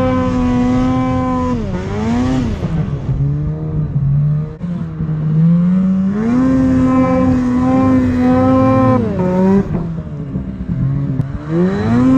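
Snowmobile engine running hard through deep powder snow, its pitch rising and falling with the throttle: it holds high, eases off about two seconds in and runs lower for a few seconds, climbs back about six seconds in, then drops again near the end and revs back up.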